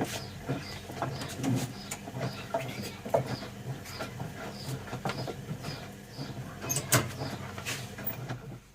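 Bauknecht WA 1460 front-loading washing machine turning its drum in the wash: a steady motor hum with laundry tumbling in irregular clicks and knocks, and a faint high chirp repeating about twice a second. The drum stops near the end.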